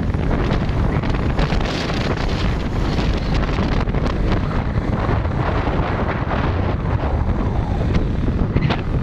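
Wind blasting the microphone of a camera riding on a moving motorcycle: a loud, steady rush heaviest in the low end, with no clear engine note.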